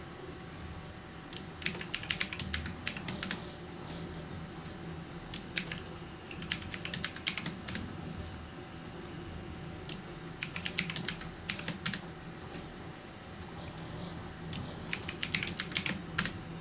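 Typing on a computer keyboard in four short bursts of keystrokes a few seconds apart.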